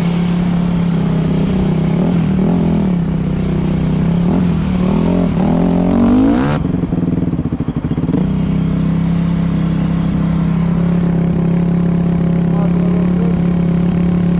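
Yamaha YZ250 two-stroke dirt bike engine running under the rider, with several short throttle blips, then a rising rev that cuts off sharply about six and a half seconds in. The engine runs unevenly for a second or so, then settles back to a steady note.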